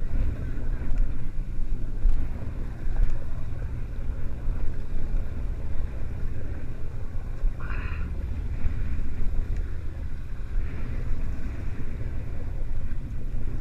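Sportfishing boat's engine running steadily under way while trolling, a low rumble with the wake washing behind the stern.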